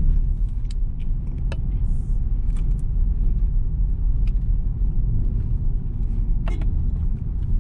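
Steady low rumble of a 2022 Mitsubishi Xpander Ultimate CVT on the move, engine and tyre-on-road noise heard from inside the cabin, with a few faint clicks.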